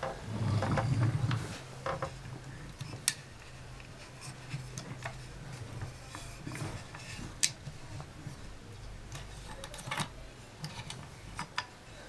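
Hardwood toy combine harvester handled on a wooden floor: a short rumble of its wooden wheels rolling in the first second or so, then scattered light wooden clicks and knocks as the toy and its wooden trailer are moved.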